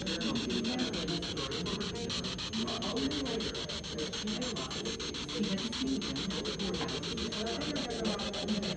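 Spirit box sweeping through radio stations: a rapid, even chopping of static with muffled snatches of broadcast voices and music.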